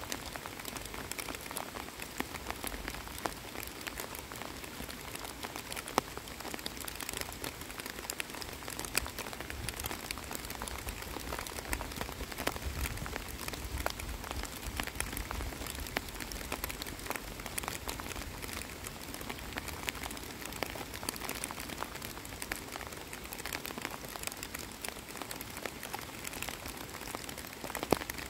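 Steady rain falling on still water and the waterside grass, a continuous patter with many separate drop ticks. One louder tap about six seconds in and another near the end.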